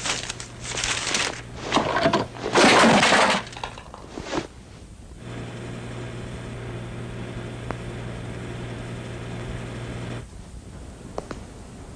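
A run of loud crashing, shattering noises over the first three seconds or so, then a steady low hum lasting about five seconds, then a few light clicks.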